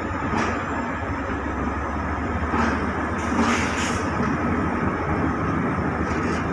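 Passenger coaches of an express train rolling slowly past on departure, with a steady rumble and a few clacks from the wheels, two close together about halfway through.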